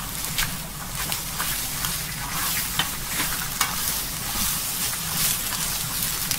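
Cabbage and sliced frankfurters sizzling in a frying pan as they are stir-fried with chopsticks. Sharp clicks come now and then as the chopsticks knock against the pan.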